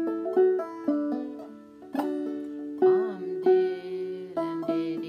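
Banjo played clawhammer style in double D tuning (aDADE), picking out a phrase of the melody as a run of ringing plucked notes.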